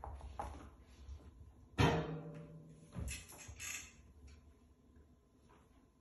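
Toy ball knocking and bouncing on a hard tile floor: a few knocks, the loudest about two seconds in with a brief ringing after it, then a quick cluster of lighter clicks about a second later.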